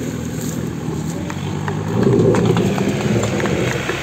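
Off-road jeep engine running hard under load as the jeep climbs a loose dirt mound with its wheels spinning, getting louder about halfway through. Scattered short sharp clicks come over it.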